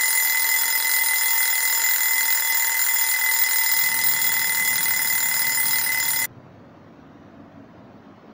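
Alarm clock ringing loudly and steadily, then cut off abruptly about six seconds in, leaving only a faint low hiss.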